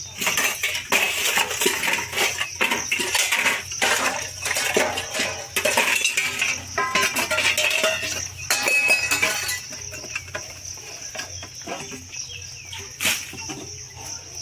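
Stainless-steel dishes, pots and tumblers clinking, knocking and scraping as they are scrubbed and rinsed by hand, in irregular clatters.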